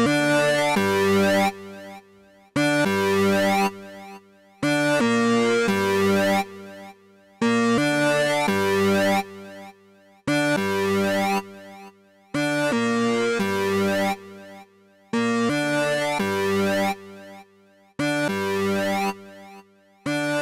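Music: sustained synthesizer chords in a repeating pattern, each chord held about a second and a half and then cut off, a new one starting about every two and a half seconds.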